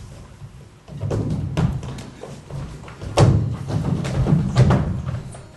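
Dancers' bodies and feet thudding and stamping on a stage floor, a run of irregular thumps that starts about a second in and is loudest about three seconds in.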